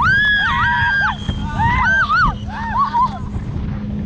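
Several riders screaming and squealing in high-pitched shrieks that rise, hold and fall, over the steady hum of a towing boat's engine and the rush of wind and water.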